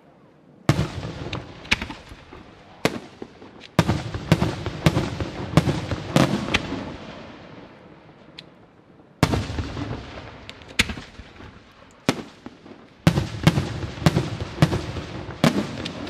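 Aerial firework shells bursting overhead: a run of sharp bangs, each trailing off into a rolling echo. The bangs come singly about a second apart, then in two quick volleys, one about four seconds in and one about thirteen seconds in.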